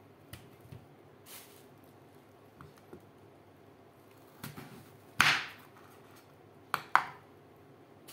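Knife cutting watermelon rind on a wooden cutting board: scattered light cuts and taps, then a louder, longer cut about five seconds in and two sharp knocks of the blade on the board near the end.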